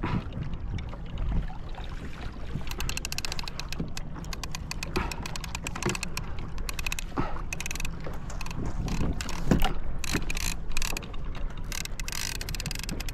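Fishing reel clicking rapidly, starting a few seconds in and running on in dense fast ticks over a low rumble of water and wind.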